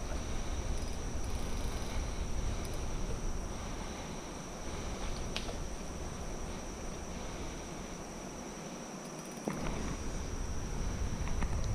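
Steady high-pitched drone of insects singing in the trees, over a low rumbling noise that dips in the middle and comes back louder near the end, with a couple of short knocks.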